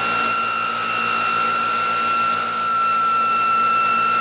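Electric motor-generator test rig running steadily with a high-pitched whine; a second, higher tone joins a fraction of a second in.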